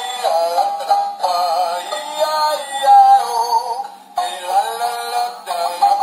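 Electronic synthesized singing over a music backing from a battery toy tractor's sound chip, continuous and thin with no bass.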